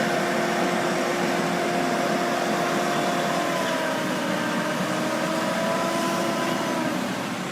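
Heavy earthmoving machinery running steadily, a constant engine sound with a whine on top that drifts a little in pitch, a second higher whine joining about halfway through.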